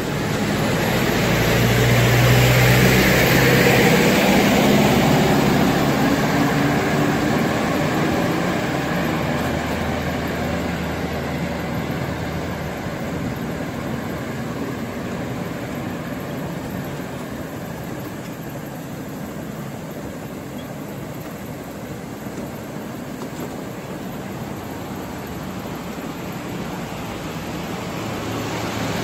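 Electric wheelchair rolling over interlocking paving stones: its tyres and front casters rumble and rattle, with some wobble noise from the front casters because of the load on the back, over a low motor hum. No grinding comes from the reduction gearbox on this uphill run. Louder for the first few seconds, then easing off.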